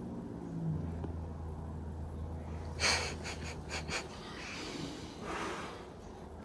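Cat hissing at another cat: a quick run of short, sharp hisses about three seconds in, then a longer breathy hiss a second or so later.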